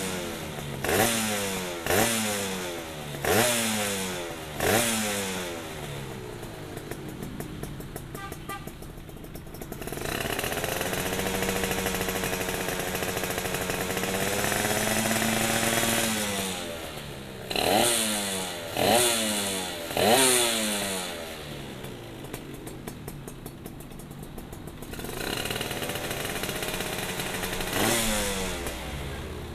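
Suzuki Satria 120 two-stroke single-cylinder engine breathing through an aftermarket CMS under-frame exhaust with ABRT20 silencer, revved on the stand: five quick throttle blips that each rise and fall, a spell of idle, a held higher rev about ten seconds in, three more blips, idle again, and another held rev near the end.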